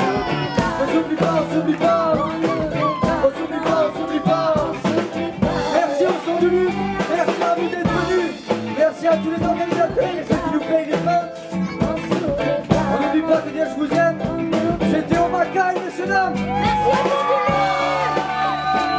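Live band playing: electric guitar and drum kit, with a voice singing over it.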